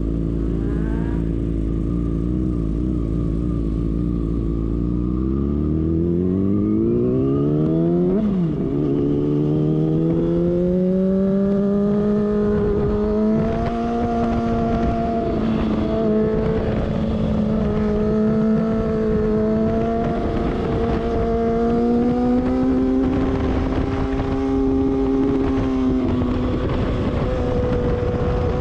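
Sport motorcycle engine idling, then revving up as the bike pulls away about five seconds in. It shifts up with a sudden drop in pitch about eight seconds in, then climbs again and runs at a fairly steady pitch with small rises and dips.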